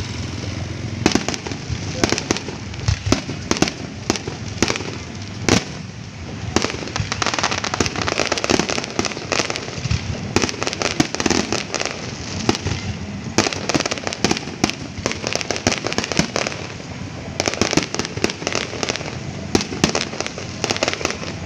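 Aerial fireworks display: a long, irregular run of sharp bangs from shell bursts, with crackling in between.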